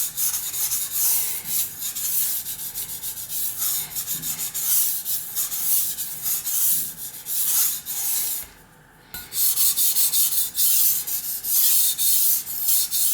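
Steel kitchen knife blade stroked back and forth on the wet 1000-grit side of a Suehiro SKG-38 combination water stone, rubbing through thick slurry. There is a brief pause about two-thirds of the way in before the strokes resume.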